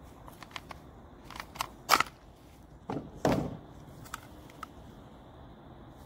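Handling noise from wiring and a plastic battery adapter: a string of light clicks and taps, a sharper click about two seconds in, and a duller knock about three seconds in.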